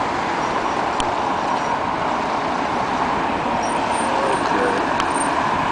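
Steady road traffic noise from cars passing on a busy road, an even wash of tyre and engine sound.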